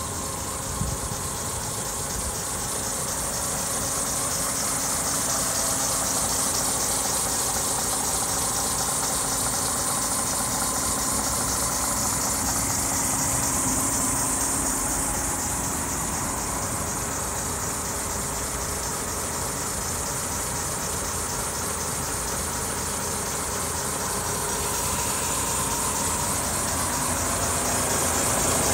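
DAF XF106's Paccar MX-13 six-cylinder diesel engine idling steadily, with a constant high hiss over it.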